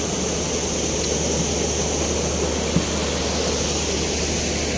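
Heavy rain pouring down, a steady, even hiss with no let-up.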